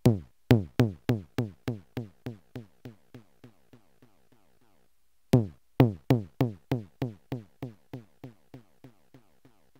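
Yamaha PSS-170 keyboard's synth tom voice: electronic tom hits with a quick downward pitch sweep. They repeat about three times a second and fade away over about four seconds. A new note starts the same pattern again about five seconds in.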